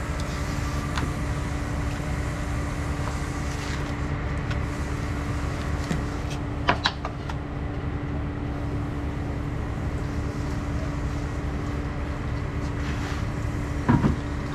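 A steady low hum with a constant tone, like a running motor. A few sharp clicks and knocks come about halfway through and again near the end.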